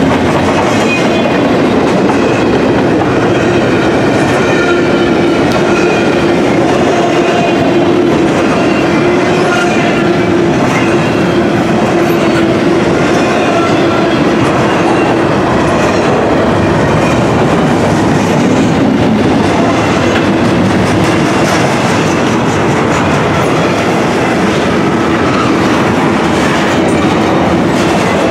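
Double-stack intermodal container well cars rolling steadily past close by: the continuous loud noise of steel wheels on rail, with a steady low hum and faint wavering high-pitched tones over it.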